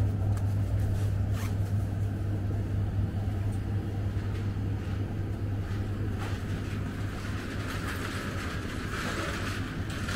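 Steady low hum of supermarket refrigerated display cases, over the faint background noise of the shop; the hum grows weaker about halfway through.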